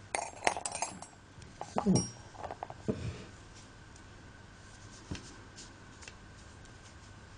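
Metal crochet hooks and scissors clicking and clinking lightly as they are handled and set down on a notebook, a quick cluster of taps in the first three seconds, then a single faint tick or two.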